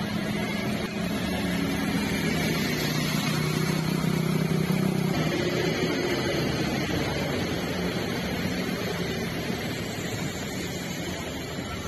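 City bus engine running as the bus drives through deep floodwater, over a steady wash of water noise. The engine hum is strongest over the first half and then fades as the bus moves on.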